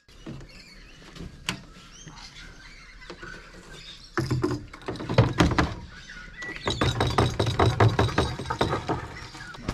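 Knocks, thunks and rubbing as a clear plastic fuel transfer hose and a plastic jerry can are handled against an aluminium boat's deck at the fuel filler during refuelling. The handling is light at first, with one sharp click, then turns loud and clattery from about four seconds in.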